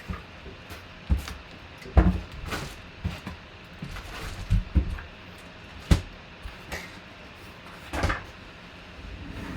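Handling noises: irregular knocks and thumps, with some rustling, as a jersey box is handled and unpacked. The sharpest knocks come about two seconds and six seconds in.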